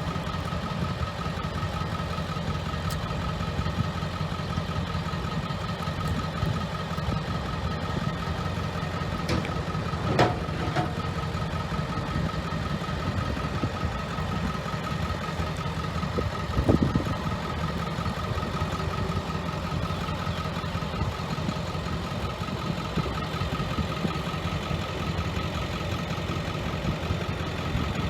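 Diesel engine idling steadily while a backhoe is loaded onto a trailer, with two brief clanks, about ten seconds in and again about seventeen seconds in.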